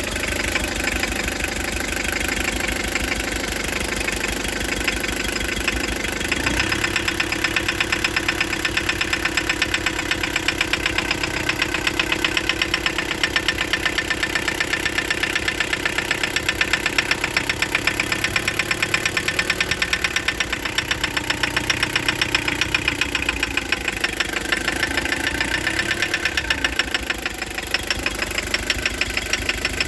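Engine running with a rapid, regular knock; the knocking becomes more pronounced about six seconds in. Its cause is unknown to the owner.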